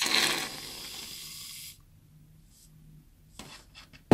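Aerosol can of shaving foam spraying out foam: a loud hiss for nearly two seconds that cuts off suddenly. A few faint clicks follow, and a short knock comes at the very end.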